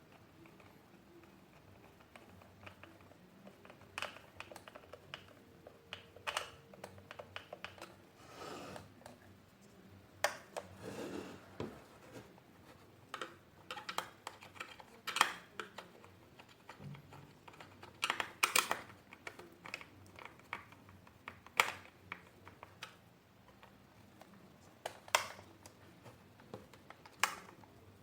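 Irregular clicks, taps and knocks of vacuum cleaner parts being handled and fitted together during assembly, with a brief scraping rustle about ten seconds in.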